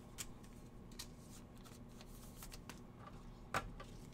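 Hands handling sports trading cards: a few soft, scattered clicks and slides of card edges, the sharpest about three and a half seconds in, over a faint low hum.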